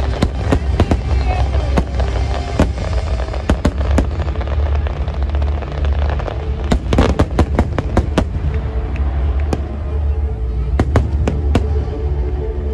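Aerial fireworks display going off: a steady run of sharp bangs and crackles, thickest in a rapid cluster about halfway through, over a continuous low rumble, with music underneath.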